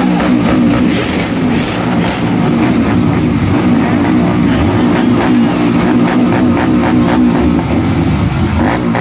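Several motorcycle engines, among them a Royal Enfield, idling steadily at close range with a constant low hum.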